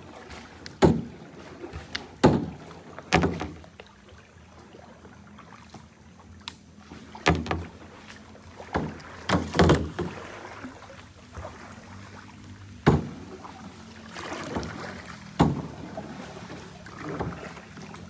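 Kayak paddle strokes dipping and splashing in the water at an uneven pace, about one every one to two seconds, with a lull of about three seconds after the first few strokes.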